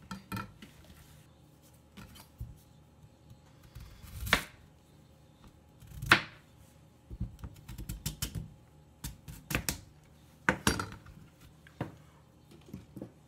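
A kitchen knife cutting through a daikon radish onto a plastic cutting board, with the radish and knife being handled and set down: separate sharp knocks, the loudest about six seconds in, followed by a quick run of lighter taps.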